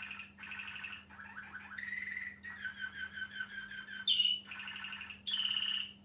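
Waterslager Malinois canary singing a continuous run of rapid rolling trills, the phrase changing every second or so, with a sharp high note about four seconds in and a loud phrase just before the song breaks off at the end. A faint steady hum runs underneath.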